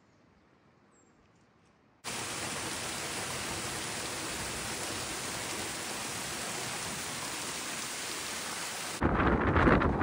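Small waterfall pouring down over rock boulders: a steady rush of falling water that starts suddenly about two seconds in and cuts off about nine seconds in. Near silence comes before it, and loud wind buffeting the microphone follows it.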